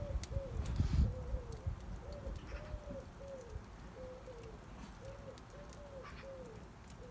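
A pigeon cooing in a long run of short, arched notes, about two a second, with faint crackling pops from a burning wood fire. There is a low rumble in the first second.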